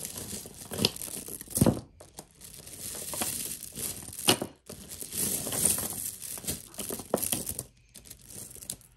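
Wrapping material crinkling and rustling as it is handled to unwrap the next piece of jewelry, with a few sharper clicks and knocks, the loudest about one and a half seconds in. It dies down near the end.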